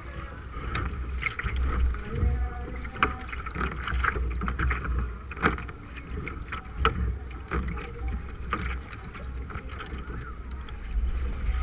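Kayak paddle strokes from a K1 sprint kayak: the blade catching and splashing in the water about once a second, over water washing against the hull. A steady low rumble of wind buffets the bow-mounted microphone.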